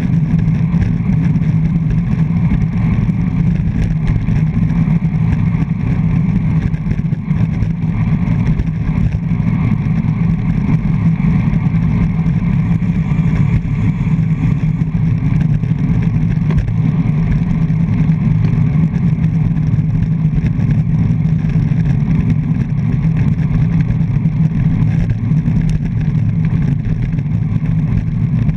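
Steady loud wind rumble on a handlebar-mounted action camera's microphone as a road bike rides at racing speed.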